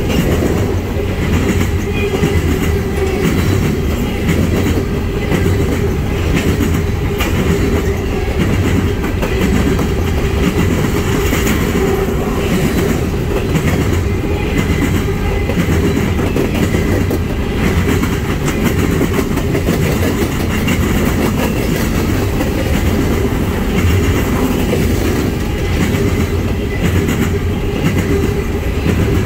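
Coal train's freight cars rolling past close by: a steady rumble of steel wheels on rail with a continual clickety-clack of wheels over rail joints, and a thin steady ringing tone.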